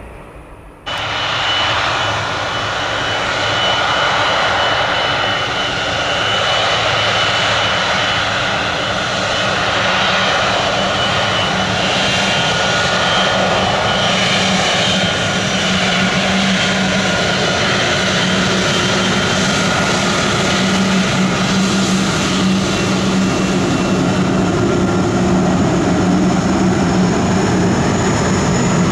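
Boeing 777's GE turbofan engines running as the airliner rolls past up close: a steady, loud jet roar with a high whine and a low hum, cutting in abruptly about a second in.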